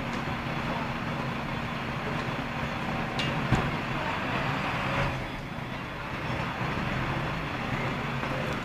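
A truck's engine running steadily with a low hum, and a single sharp knock about three and a half seconds in.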